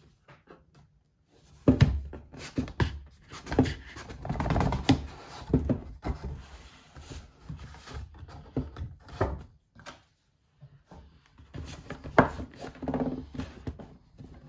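Cardboard reel packaging being handled on a table: the box scraping and sliding, with irregular knocks as it is set down and turned over.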